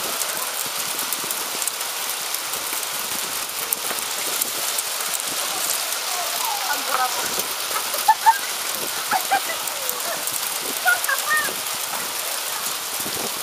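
Hailstorm: hail pelting down with rain, a steady hiss thick with sharp ticks of hailstones striking.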